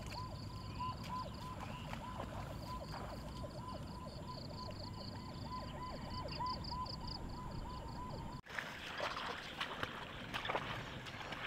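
Rhythmic chorus of calling animals in a flooded rice field: a short note repeated about three times a second, with a higher pulsing trill over it. It cuts off abruptly about eight seconds in, giving way to irregular clicking and crackling.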